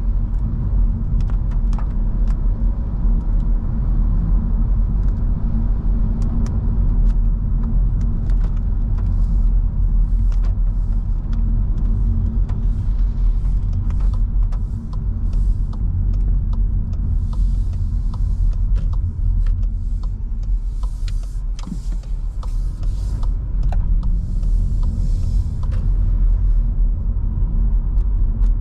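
In-cabin sound of a Skoda Scala with the 1.5 TSI four-cylinder turbo petrol engine driving on a wet road. A steady low rumble of engine and tyre noise runs throughout, with scattered light ticks and several bursts of hiss in the second half.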